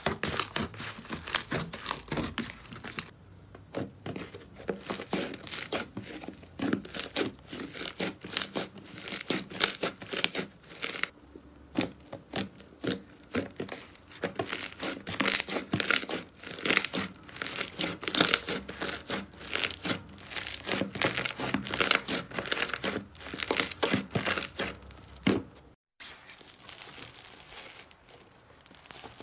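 Foamy slime being pressed, squeezed and stretched by hand: a dense, uneven run of wet crackling and popping as trapped air bubbles burst. Near the end it cuts off abruptly and a much quieter rustle of hands in foam beads follows.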